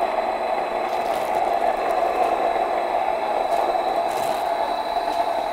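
Electric countertop grain mill grinding whole wheat berries into flour at its finest setting: the mill runs with a steady whirring grind and a thin, steady high whine over it.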